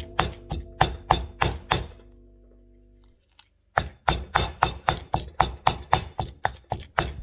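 Stone pestle pounding wet curry paste in a heavy stone mortar: quick, even knocks about four to five a second. The pounding stops about two seconds in and resumes after a gap of a second and a half.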